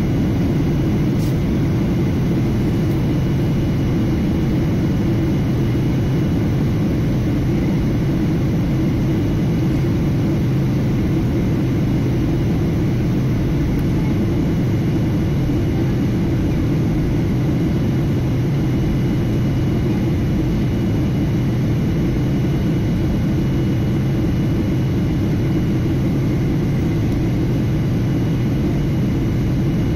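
Steady cabin noise of a Boeing 737-800 airliner in flight, heard from a window seat over the wing: the CFM56-7B engines and the airflow make a constant low rumble, with faint steady high tones above it.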